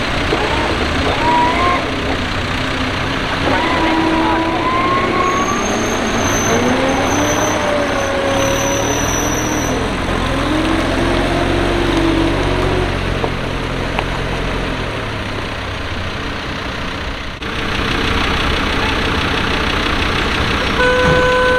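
Off-road 4x4 engines running, their note rising and falling. Near the end a vehicle horn sounds a steady toot.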